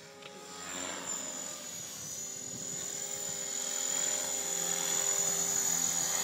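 Align T-Rex 500 electric RC helicopter flying low and close, a steady high-pitched whine with rotor noise. It grows louder over the first few seconds as the helicopter comes nearer, then holds.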